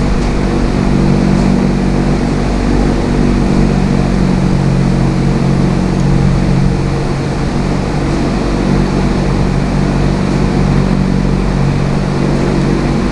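Steady mechanical hum made up of several low steady tones, holding level throughout.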